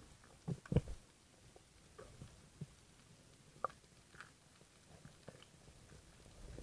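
Underwater ambience over a coral reef, heard through a camera's waterproof housing: faint, scattered clicks and knocks, the loudest two close together about a second in.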